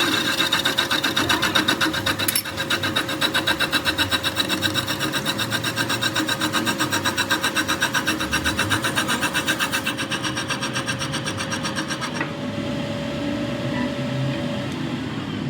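Fast, regular rasping strokes of metalworking, several a second, over a steady hum; the strokes stop about twelve seconds in and the hum runs on a little longer.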